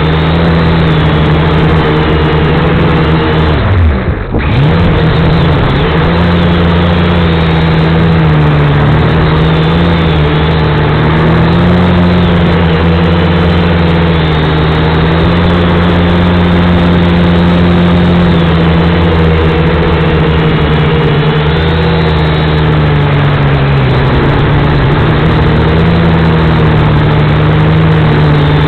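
V222 quadcopter's motors and propellers whirring steadily in flight. About four seconds in the pitch dips sharply and comes straight back up, and later it wavers slightly as the throttle changes.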